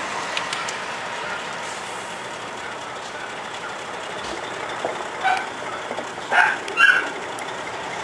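Steady vehicle and machinery noise with no clear changes. In the last three seconds a dog gives a few short, high yips.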